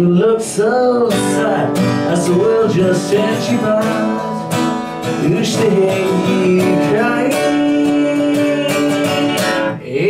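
Black acoustic-electric guitar strummed steadily, with a man singing over it in a live song performance.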